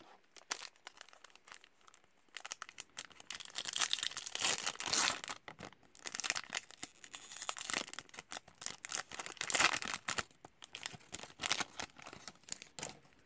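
A hockey card pack's wrapper being torn open and crinkled: an irregular run of crackling rustles and rips, loudest about four to five seconds and again about ten seconds in.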